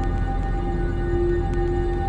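Dark ambient music: a deep, steady low drone with sustained held tones above it.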